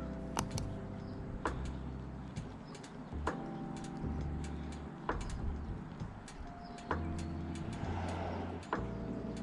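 Lo-fi hip hop background music: a slow beat with soft sustained chords and a bass line.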